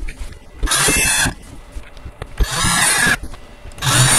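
Cordless drill driving screws through the end panel into the bed rails, in three short bursts of whirring, each under a second long.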